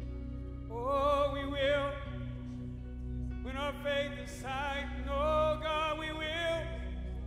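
Worship music: a singer's high voice holds long, wavering notes with vibrato in two phrases, about a second in and again about three and a half seconds in, over a steady low instrumental drone.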